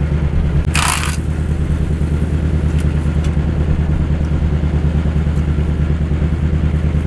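Chevy 350 V8 idling steadily in a 1973 Chevy one-ton truck, with a short scraping rustle about a second in.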